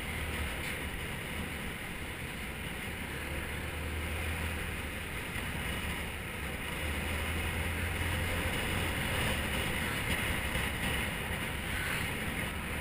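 Motor scooter engine running steadily under way, with wind rushing over the microphone; it grows a little louder past the middle.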